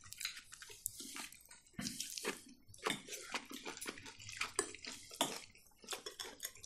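Wet chewing and mouth sounds of people eating boiled pelmeni dumplings: a scatter of short, irregular smacks and clicks at a low level.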